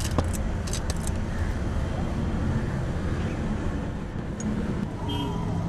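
Steady street traffic noise, a continuous rumble of passing vehicles. A few short sharp clicks come in the first second.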